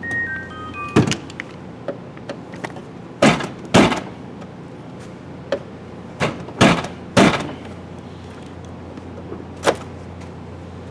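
A series of sharp knocks and clunks, about seven spread over several seconds, from tools being picked up and handled against a pickup truck's door and its handle mechanism. A few brief metallic ringing tones come right at the start, over a steady low hum.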